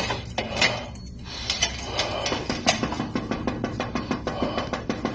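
A rapid, irregular series of sharp knocks and clatters, coming several times a second from about halfway in, over a steady low hum.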